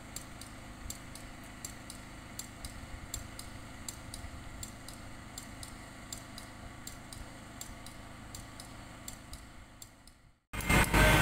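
Faint, steady low rumble of distant heavy machinery with light, irregular clicking a few times a second. About ten seconds in it cuts out, and a much louder engine sound of a nearby machine begins.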